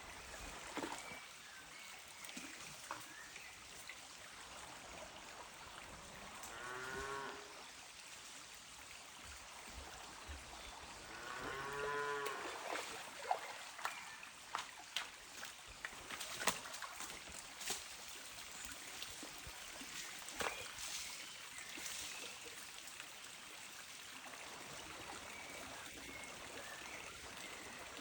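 Cows mooing twice, the second call longer and louder. Behind them a stream trickles steadily, and in the second half there is a run of sharp clicks or knocks.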